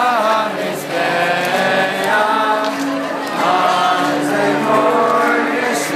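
A large crowd of teenagers singing together in unison, held notes in short phrases of a second or so.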